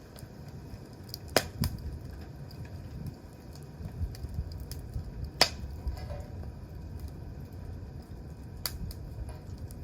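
Wood campfire burning and crackling, with a few sharp pops over a steady low rumble.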